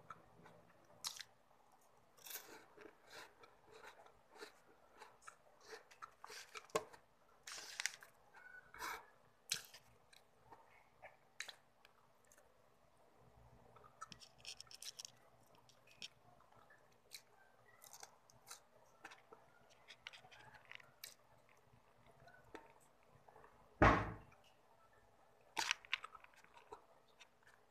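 Chewing and crunching of a crisp wafer stick, a run of irregular sharp crunches. One louder, deeper thump comes near the end.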